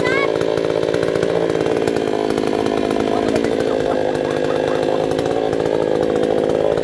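Oxford OXSW5800 gasoline chainsaw's two-stroke engine running steadily with no load, not cutting.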